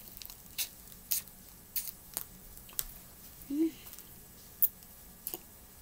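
A person eating from a mouthful: a string of short, sharp crunches and mouth clicks spaced irregularly, with a brief hummed "mm" about halfway through.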